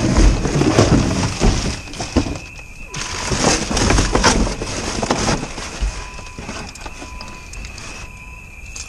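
Rummaging through cardboard boxes, paper comics and plastic wrapping: rustling and crackling with short knocks and bumps, in two loud spells over the first five seconds, then quieter handling.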